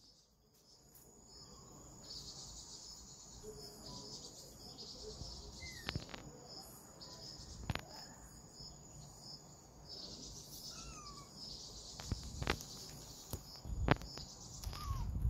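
A steady chorus of chirping insects, high-pitched and finely pulsing throughout. A few short gliding chirps and several sharp clicks come and go over it.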